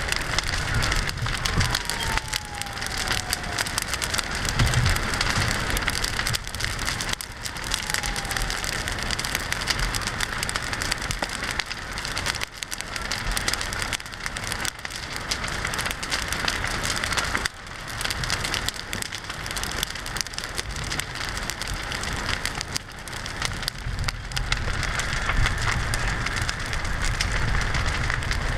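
Fully involved fire burning a travel trailer, wooden fence and brush: a steady, dense crackling and popping of burning wood and debris.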